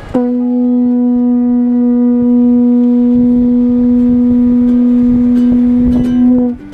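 Conch shell trumpet (Hawaiian pū) blown in one long, steady note of about six seconds. The note swells briefly just before it stops. Sounded to open the wedding ceremony.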